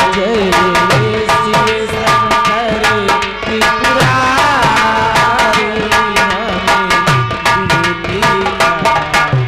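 Nautanki instrumental accompaniment: fast hand-drum strokes with repeated falling bass glides under a sustained melody line that bends in pitch about four seconds in.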